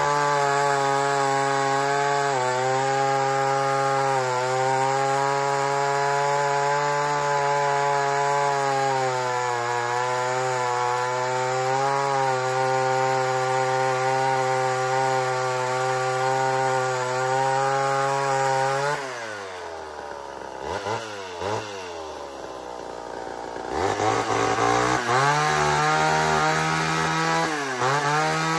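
Homelite XL12 two-stroke chainsaw held at full throttle, cutting through a log, its pitch wavering slightly under load. About two-thirds through it drops to idle with two quick throttle blips, then revs up again for a few seconds and falls back near the end.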